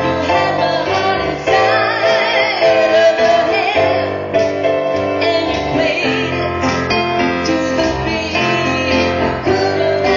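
Music: a woman singing over piano or keyboard accompaniment.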